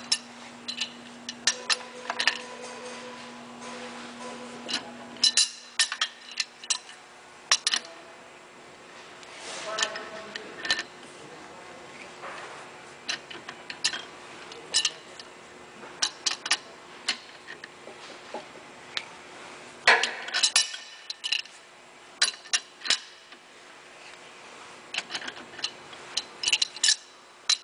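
Irregular metallic clinks and clicks of an adjustable wrench and an Allen wrench being turned and repositioned on a C722 hand tool as it draws up a 3/8-16 Plusnut rivet nut. A low steady hum stops suddenly about five seconds in.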